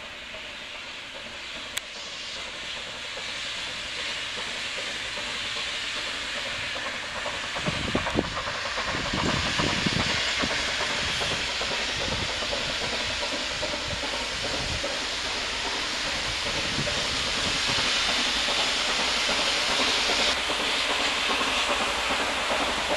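Oil-fired X-class steam rack locomotive of the Nilgiri Mountain Railway approaching on the rack section: a steady steam hiss that grows louder as it draws nearer. There is a burst of low rumble about eight seconds in.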